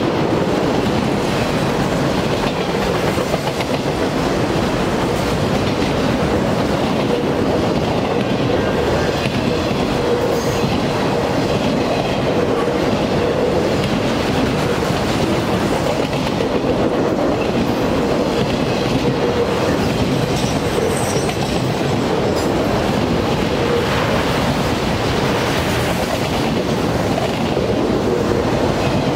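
Loaded autorack freight cars rolling past close by: a steady rumble and clatter of steel wheels on rail, with a faint whine that comes and goes.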